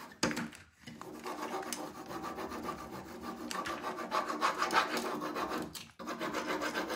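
Hands rubbing a rub-on transfer's plastic carrier sheet against a painted wooden surface, a steady scratchy rubbing that burnishes the design onto the wood. It breaks off briefly about a second in and again near the end.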